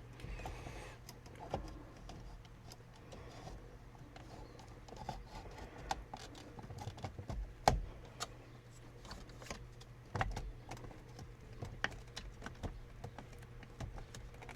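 Scattered small clicks and taps of plastic parts being handled and fitted: the cruise control stalk being seated into the combination switch on a steering column. A couple of louder knocks stand out near the middle and a little after, over a faint steady hum.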